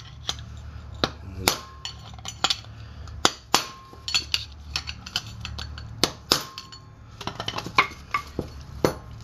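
Hammer strikes on steel in a front wheel hub, driving a bearing race or seal home. There are about a dozen sharp, irregular blows, some leaving a short metallic ring.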